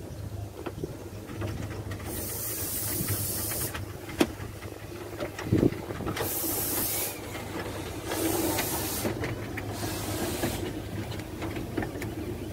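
Hunslet 4-6-0 narrow-gauge steam locomotive passing slowly at close range, hissing steam in four long bursts a couple of seconds apart. Two sharp knocks come in the middle.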